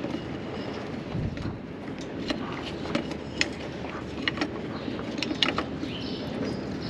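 Scattered light clicks and knocks of someone moving and handling things under a truck, over a steady low background noise.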